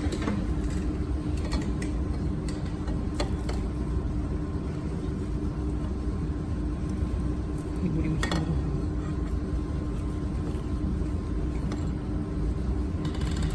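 Steady hum and low rumble of a mold-repair laser welding machine, with a few sharp, widely spaced clicks.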